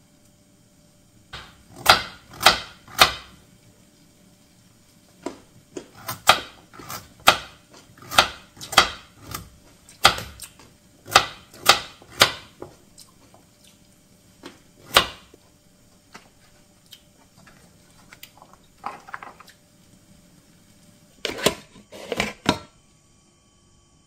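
Kitchen knife cutting carrots on a wooden cutting board: sharp separate knocks of the blade reaching the board, in bursts of about two a second with short pauses, and a brief softer rustle a few seconds before the last burst.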